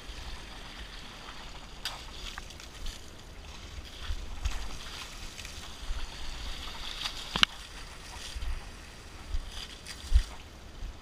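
Buckets of river water being scooped and thrown over an elephant, splashing and sloshing in shallow water, with a low rumble and a few sharp knocks, the loudest about two-thirds of the way in and again near the end.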